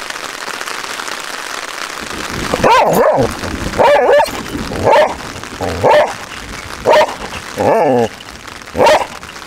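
Border collie barking about once a second, around seven barks in a row starting a few seconds in, over a steady hiss of rain on the tent.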